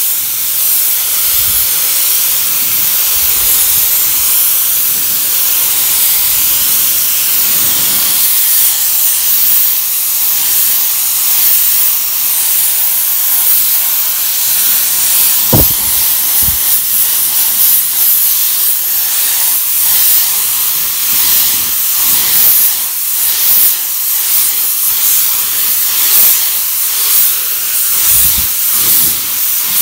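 Compressed-air paint spray gun hissing loudly as it sprays a textured bumper coating, the hiss rising and falling as the trigger is worked. A single sharp knock about halfway through.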